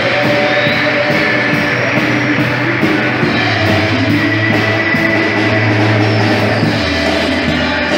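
Live band playing a pop song, with guitar, bass and drums keeping a steady beat.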